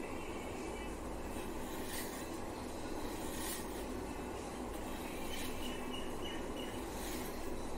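Steady low background noise, with four faint scraping strokes of a kitchen blade paring or cutting food.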